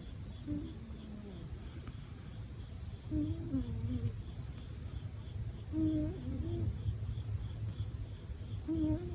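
Sleeping Siberian kitten snoring, its nose whistling in a wavering squeak with each breath, three times about three seconds apart.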